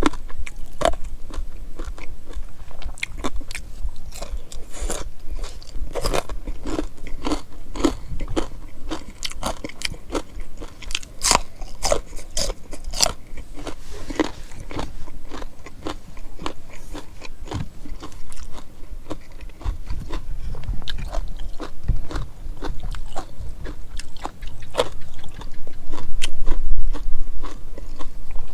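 A person chewing and crunching food close to the microphone, with many irregular crisp bites and smacking sounds throughout.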